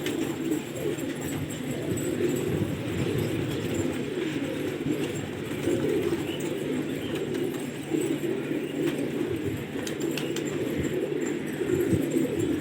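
A flock of domestic pigeons cooing continuously, many birds at once, with a few faint clicks about three quarters of the way through.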